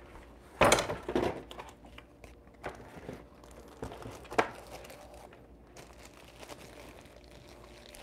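Clear plastic bag crinkling as it is handled around a wrapped plaque, loudest about a second in, then a few light scattered rustles and clicks.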